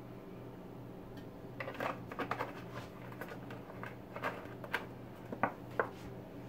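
A scatter of light clicks and knocks from kitchen items being handled, a quick cluster about two seconds in and then single taps every half second or so, over a steady low hum.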